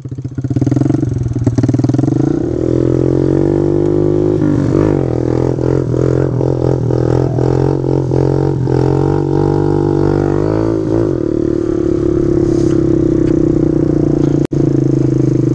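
Small pit bike engine under way, climbing in pitch over the first couple of seconds as it gathers speed, wavering up and down through the middle with the throttle, then running steadily at cruising speed. A split-second dropout near the end.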